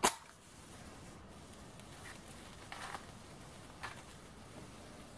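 A match struck on its box with one sharp scratch, used to light the metho burner of a small gamma-type Stirling engine; then a short rustle about three seconds in and a single click about a second later. The engine itself is still cold and not yet running.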